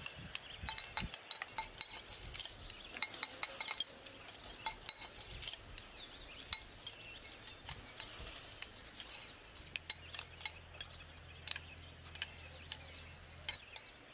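Metal spoons tapping and scraping against glass bowls as the cooked meat and grains of abgoosht are mashed, many quick irregular clicks.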